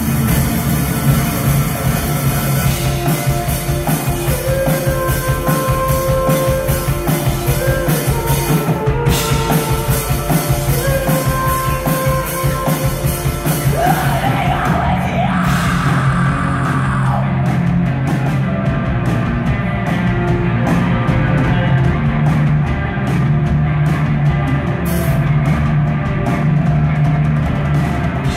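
Live rock band playing loud, dense music with drums hitting throughout. Held melodic notes ring out over the middle stretch, with a rising slide about halfway through.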